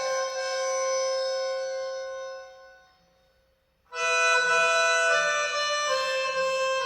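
Pianica (melodica) music: reedy held notes that fade away to near silence about three seconds in, then new held notes start sharply about a second later.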